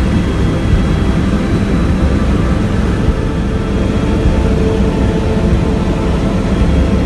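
Tour helicopter's engine and rotor running in flight, heard inside the cabin as a loud, steady, deep drone.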